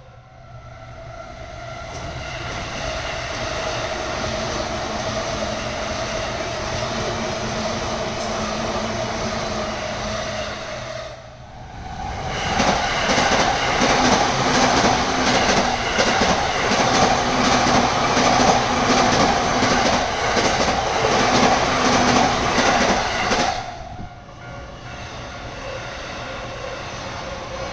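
JR electric trains passing over a level crossing, wheels clattering over the rails. There are two separate passes: a moderate one in the first ten seconds or so, and a louder one from about twelve to twenty-four seconds in. Each ends abruptly.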